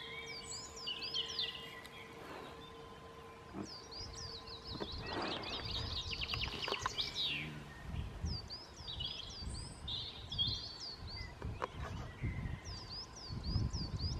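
Wild songbirds singing: many short, high chirping notes in quick runs, with a fast trill about five to seven seconds in. A low rumble of wind on the microphone grows stronger in the second half.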